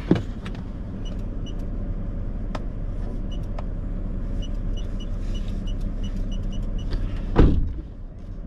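Keypad beeping as a code is punched in: about a dozen short high beeps, several in quick succession, over the steady low hum of the idling car. A loud thump near the end.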